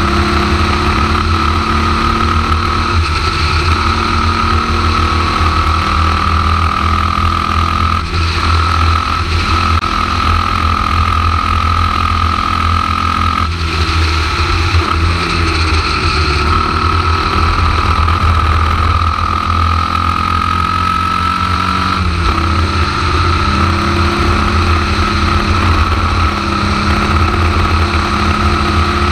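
Onboard sound of a Formula Vee racing car's air-cooled Volkswagen flat-four engine running hard at racing speed, with a steady high whine above it. The engine note breaks and changes about 8, 13 and 22 seconds in.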